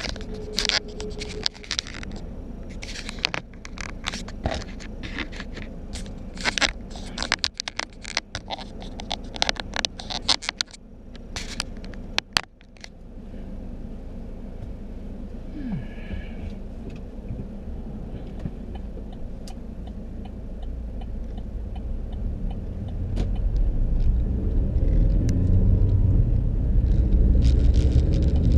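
A rapid run of close clicks and scrapes, as of something handled right at the microphone, over a low car rumble. Then the car's engine and road noise run steadily, growing louder about three-quarters of the way in.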